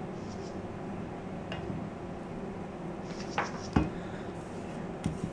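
Spoon or spatula stirring and scraping thick pancake batter around a mixing bowl, with a few light clicks against the bowl.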